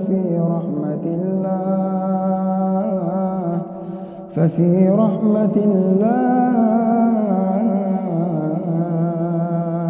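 A man's voice reciting the Quran in a melodic, chanted style, holding long ornamented notes that bend up and down, with a short pause for breath about four seconds in.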